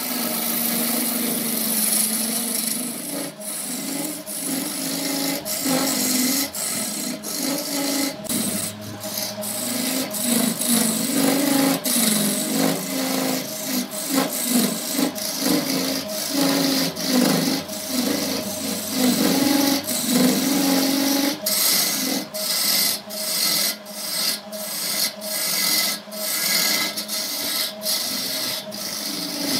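Wood lathe spinning a laminated wood blank while a hand-held turning tool cuts into it: a steady hum under rough scraping of the tool on the wood. The scraping is broken by many brief gaps as the tool lifts and bites again, and these come more often in the second half.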